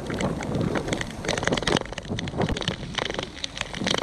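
Wind buffeting a bike-mounted action camera's microphone while riding, with tyre noise on a wet path and many small sharp clicks and ticks scattered throughout.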